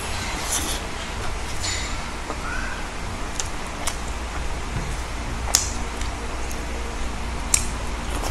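Close-up mouth sounds of eating fried chicken with the hands: chewing and lip smacks, with a few sharp clicks scattered through, over a steady low hum.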